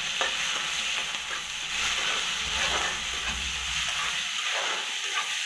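Sliced onions and green chillies sizzling in hot oil in a metal kadhai while being stirred, with the stirring scraping through a steady frying hiss.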